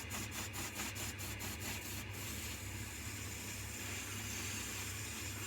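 Coronet 1 wood lathe running with a steady motor hum while a gouge cuts the spinning blank. There is rapid, even ticking for the first couple of seconds. The lathe runs smoothly with its wood chuck properly tightened.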